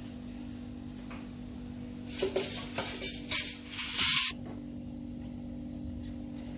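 Spatula scraping and clattering against a pan of jaggery melting in ghee, a quick run of scrapes about two to four seconds in, over a steady low hum.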